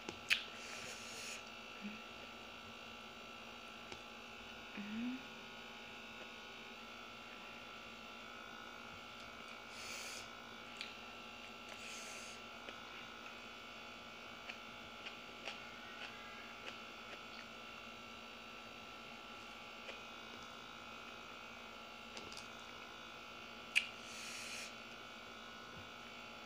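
Quiet eating sounds: scattered soft clicks, smacks and a few brief hisses as rice and grilled fish are eaten by hand, with a sharper smack near the end. Under them runs a faint, steady electrical buzz.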